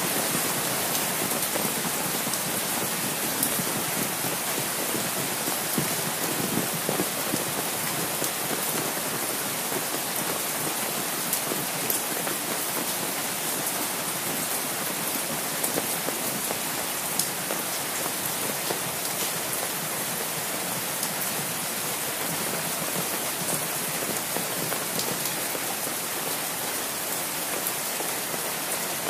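Steady rain falling, with many single drops ticking close by.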